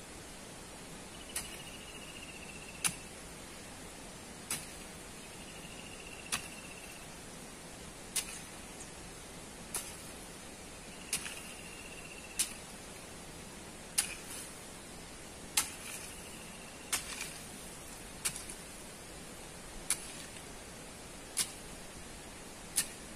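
A metal hand tool striking into a packed sand-and-gravel bank: about fifteen sharp strikes, one every second and a half or so, some followed by a brief faint scrape, over a steady hiss.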